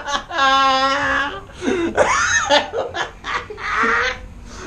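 Several men laughing hard together, in uneven bursts, with one long held laugh near the start.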